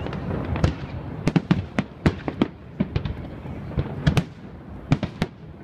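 Aerial fireworks shells bursting: a rapid, irregular series of sharp bangs, several a second.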